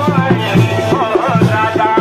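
Loud dance music with a steady, quick drum beat and a melody running over it.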